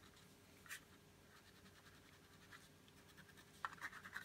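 Faint scratching of a wax crayon colouring on paper in short repeated up-and-down strokes, with a few louder strokes near the end.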